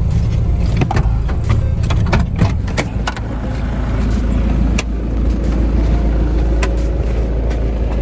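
A four-wheel-drive vehicle's engine running with a steady low rumble, with many sharp clicks and knocks scattered through it.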